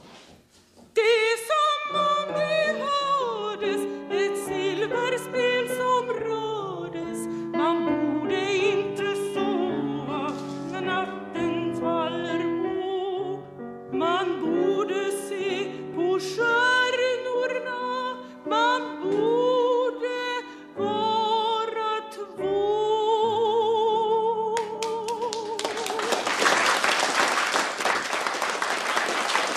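A woman singing an operatic song with heavy vibrato over a quiet accompaniment, closing on a long held note. Applause from the audience breaks out near the end.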